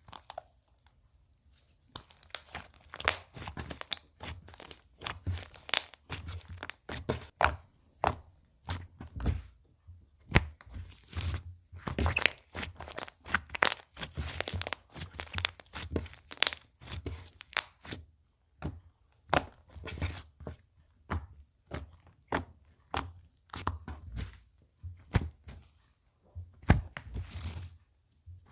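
Slime being squeezed, poked and stretched by hand, giving clusters of wet crackling clicks and pops about twice a second, starting about two seconds in, with a few short pauses.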